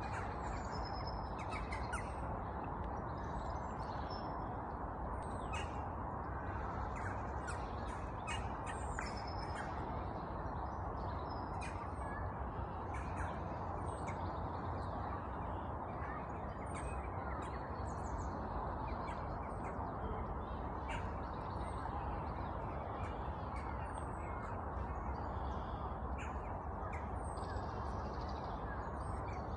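Birds calling outdoors, short chirps and caws scattered throughout, over a steady low rushing background.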